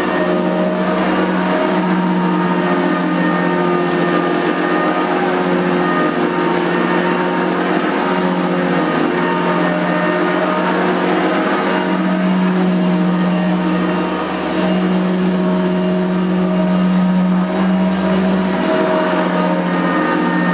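Nilco 271 commercial upright vacuum cleaner running steadily: a loud motor hum with a whirring haze, its pitch shifting slightly now and then.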